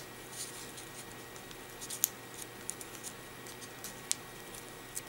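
Soft rustling and crinkling of folded paper as fingers tuck the end of an origami paper module into a pocket of the bracelet, with a few small sharp ticks of the paper, the clearest about two seconds and four seconds in.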